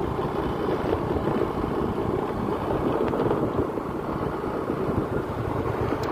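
Steady low rumble of a vehicle on the move, with wind buffeting the microphone.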